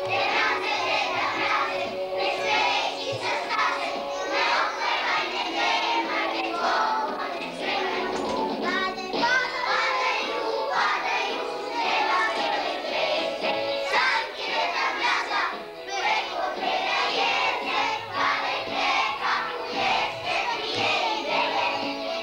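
A group of young preschool children singing a song together in chorus.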